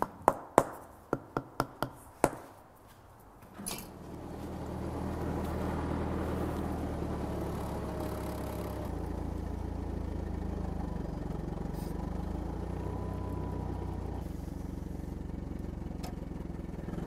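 A quick run of about seven sharp taps in the first couple of seconds, then a Toyota forklift's engine running steadily, a low hum that sets in about four seconds in as the forklift carries its load.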